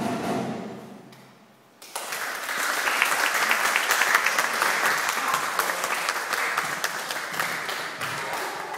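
Music fades out, and about two seconds in an audience breaks into applause: dense, steady hand-clapping that carries on, easing off slightly near the end.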